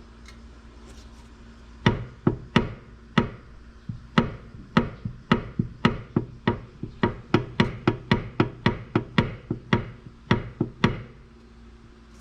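Repeated sharp knocks, roughly two a second and a little irregular, from about two seconds in until near the end, from the Rover Mini's front floor: the clunk of play in the steering rack, which is bolted straight to the body and passes the knock into the floor pan.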